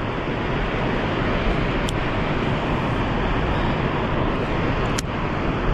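Steady rushing of river water over rocks, with two brief clicks about two and five seconds in.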